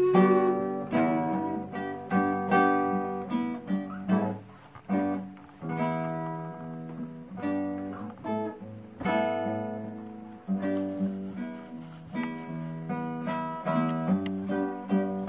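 Acoustic guitar music: strummed chords and plucked notes, each attack ringing out and fading before the next.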